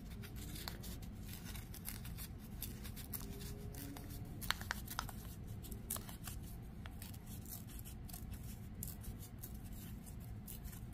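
Hands handling paper and thread: faint rustling with scattered small clicks, a couple of sharper ones about four and a half seconds in, over a steady low room hum.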